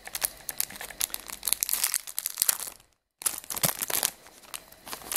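Small clear plastic bags holding metal cabochon settings crinkling and crackling as they are handled, with a brief total break in the sound about three seconds in.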